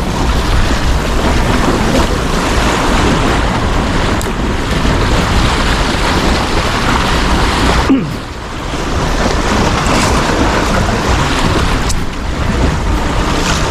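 Wind buffeting the microphone over the wash of sea waves, a loud, steady rush that dips briefly about eight seconds in.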